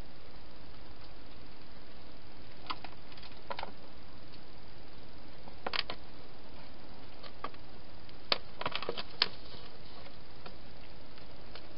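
Steady hiss from a night-vision trail camera's microphone, with a scattered handful of small sharp clicks and ticks, most of them bunched together about eight to nine seconds in.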